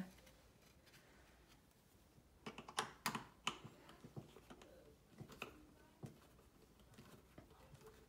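Faint handling sounds of small wooden parts and a hand screwdriver: a cluster of light clicks and knocks about two and a half seconds in, then a few softer taps, as a screw is set and turned into the softwood back plate.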